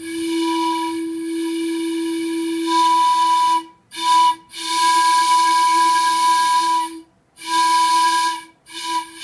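Handmade 12-inch copper train whistle blown with compressed air, sounding a steady chord-like tone in five blasts: a long one, louder from about three seconds in, then a short toot, another long blast, a shorter one, and a last that is still going at the end.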